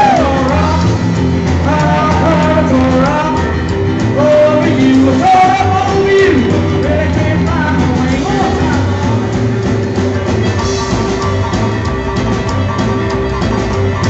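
Live rock and roll band: a man singing over a stage keyboard played piano-style and a drum kit. The singing drops out a little past halfway, and the piano and drums play on.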